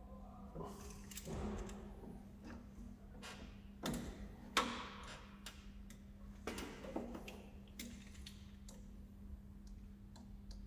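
Scattered light clicks and taps of a screwdriver and cable cores being worked at an isolator switch's terminals inside a steel wall enclosure, with one sharper knock about four and a half seconds in. A steady low hum runs underneath.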